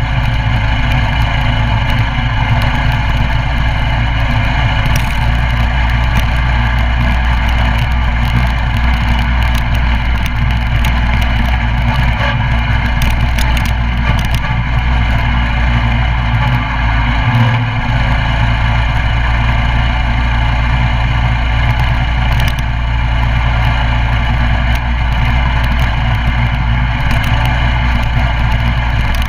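Coleman CT200U mini bike's 196cc single-cylinder four-stroke engine running steadily, with a brief dip in the engine note about seventeen seconds in.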